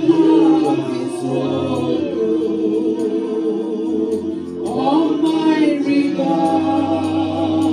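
A gospel worship song, sung by a woman into a handheld microphone, with other voices joining in over a steady low musical backing. The sung notes are held and change pitch about halfway through.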